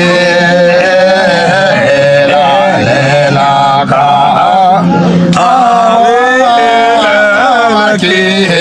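Men singing a Hyolmo (Yolmo) folk song unaccompanied, in a chant-like style with long held notes that bend and waver in pitch.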